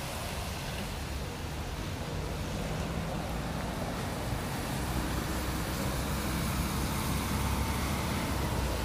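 Steady rain hiss on a wet street, with a low rumble underneath that grows slowly louder through the clip.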